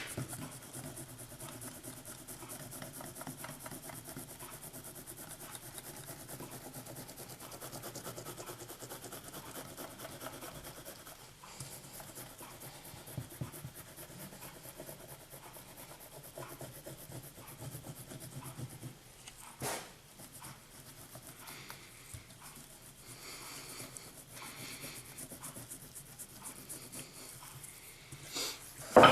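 Damp firework star composition being rolled out flat between brass rod guides, a continuous rubbing and rolling sound, with a single knock about twenty seconds in.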